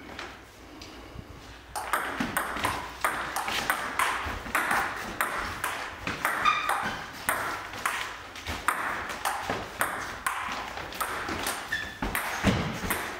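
Table tennis rally: the celluloid ball clicking off bats and bouncing on the Stiga table in a fast, steady back-and-forth, starting about two seconds in and running on as a quick string of sharp clicks with a hall echo after each.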